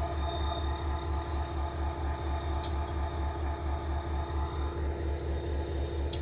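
An idling engine: a low, steady throb that pulses about four to five times a second, with a couple of faint clicks.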